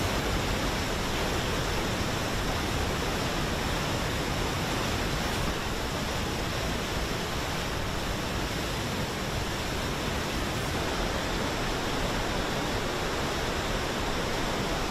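Muddy river in flood pouring over a weir under a bridge: a steady, dense rush of turbulent water.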